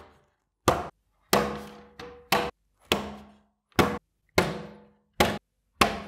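Solid pine shelf boards of an IKEA Ivar shelf being knocked down onto their shelf supports so they clip in. About nine sharp wooden knocks come at uneven intervals, each with a short ring.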